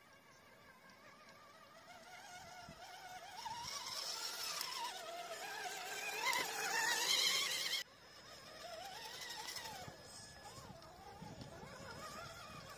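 RC crawler's electric motor and gears whining, the pitch wavering up and down with the throttle while it wades through shallow water, with water splashing at the wheels. It grows louder as it comes close, then cuts off suddenly about eight seconds in.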